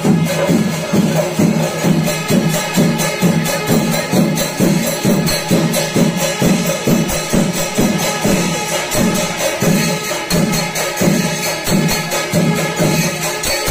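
Kerala temple percussion ensemble playing for an elephant procession: drums beating a steady, driving rhythm of about two to three strokes a second, with cymbals clashing continuously over them.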